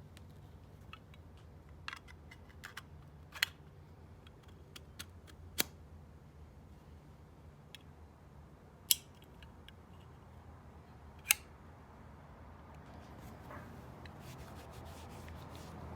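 Irregular sharp clicks and taps, the two loudest about nine and eleven seconds in, with a soft rubbing sound building near the end.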